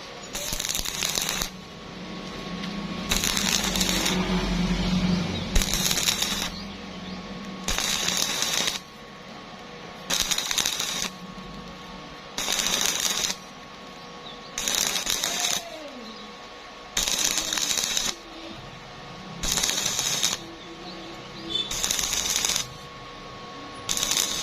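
Stick welding arc crackling on thin square steel tube, struck and broken in a steady rhythm of short bursts about a second long with short pauses between, after one longer run of about three seconds near the start. The stop-start arc keeps the heat down on the thin wall so it does not burn through.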